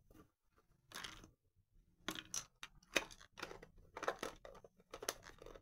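Hard plastic clicks, taps and rattles from a small plastic My Mini MixieQ's ranch playset being handled. Its tiny toy pieces are packed inside and the cube-shaped case is closed, with a sharp click at the end.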